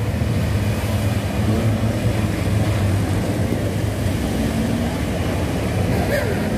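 Several off-road jeep engines running together in a steady drone, their pitch shifting a little as they drive, with water splashing as the jeeps ford shallow muddy pools.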